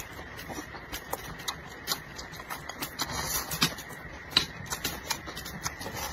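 Close-up eating sounds: chopsticks clicking irregularly against a ceramic bowl as food is shovelled into the mouth, with chewing and smacking in between.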